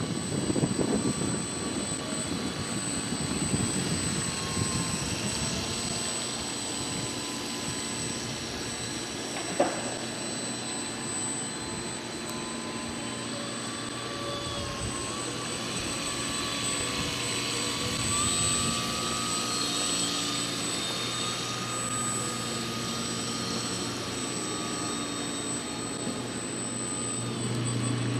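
Radio-controlled model tugboat's motor running with a steady high whine over the hiss of its wash, the pitch stepping up and down as the throttle changes. A single sharp click comes about ten seconds in.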